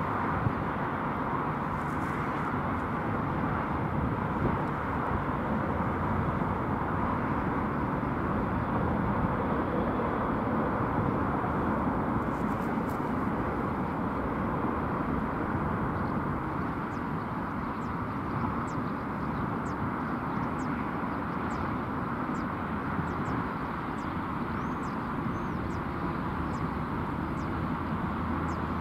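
Twin jet engines of an Airbus A330 at takeoff thrust, heard from a distance as a steady, even noise through the takeoff roll and climb-out.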